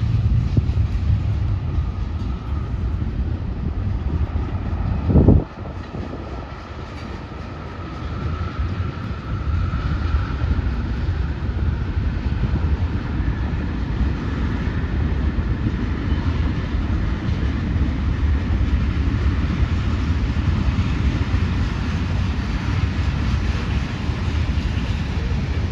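CSX freight train rolling past, a steady rumble of railcars on the rails. A single sharp thump about five seconds in, after which the rumble is quieter for a couple of seconds before building back up.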